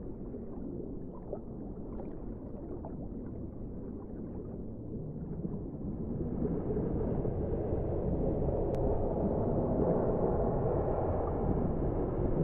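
Muffled underwater ambience: a low, steady rumble with faint scattered bubbling pops that swells louder about halfway through.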